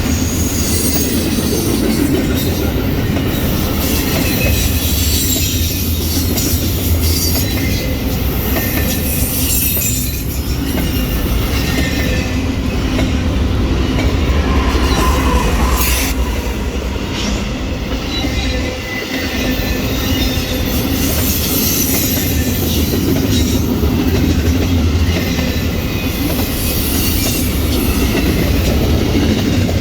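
A train rolling past on the main line: a steady, loud rumble of wheels on rail, with thin high squeals from the wheels coming and going throughout.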